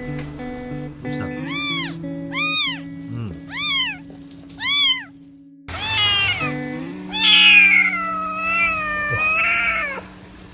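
Kitten meowing: four short high meows, each rising and falling in pitch, then a longer wavering meow from about six seconds in. Background music with steady held notes plays underneath.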